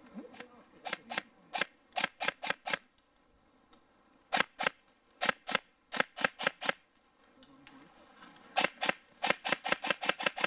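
Airsoft gun firing single shots in quick strings of sharp cracks, about four or five a second, with short pauses between three strings.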